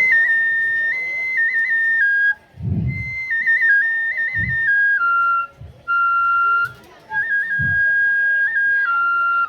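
Kagura accompaniment: a bamboo transverse flute plays a high melody of held notes broken by quick trills, stepping down in pitch, with a few deep drum strikes under it.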